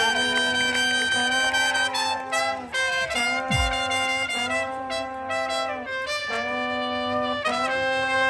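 Brass music playing a series of long, held chords, with short breaks between them.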